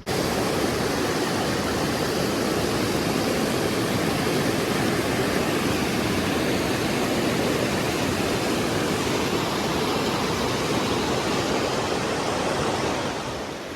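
Steady rush of river water, an even loud hiss without rhythm that eases slightly near the end.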